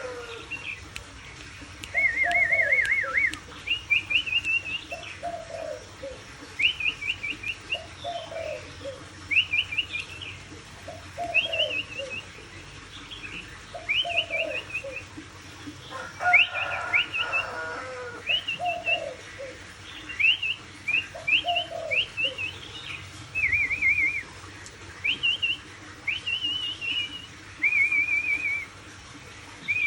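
A wild-caught songbird singing a run of short, clear whistled phrases, about one every second or so, some ending in a quick warbling trill, with fainter low notes beneath many of them.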